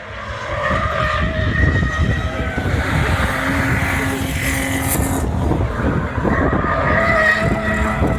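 Rallycross cars at racing speed on the track, their engines held at high revs, getting louder over the first second.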